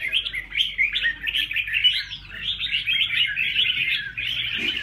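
Several small caged songbirds chirping and twittering together in a dense, continuous, overlapping chatter.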